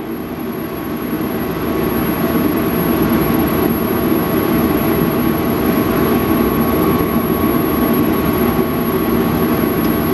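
Metal lathe running: a steady machine hum with a thin, high, constant whine, building over the first couple of seconds and then holding steady.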